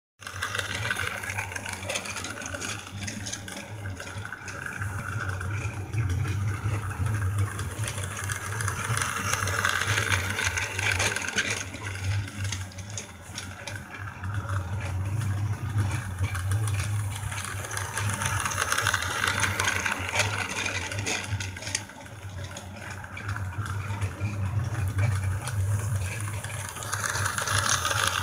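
Battery-powered toy train's small motor whirring as it runs laps around a plastic track, its wheels rattling on the rails; it swells as the train comes past and fades as it goes round, about every nine seconds.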